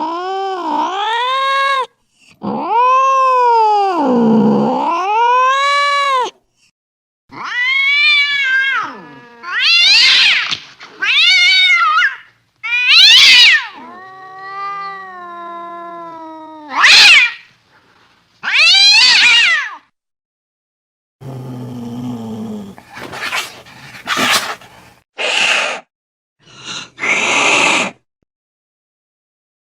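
Cats meowing and caterwauling. Two long, drawn-out calls that fall and rise in pitch are followed by a string of shorter cries with pauses between them. Near the end come several short, harsh, noisy cries.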